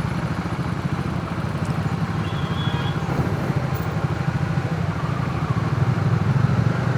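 Motorcycle engine running steadily at low revs, a fast even pulsing hum with no revving.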